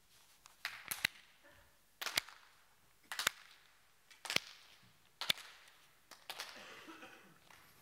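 Sharp, loud hand claps, about one a second, some in quick pairs, followed by softer noise near the end.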